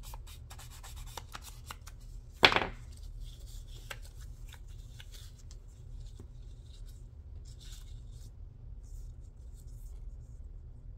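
Hands moving and pressing small pieces of paper on a craft table: a run of light clicks and rustles, one loud sharp tap or slap about two and a half seconds in, then quieter paper rustling.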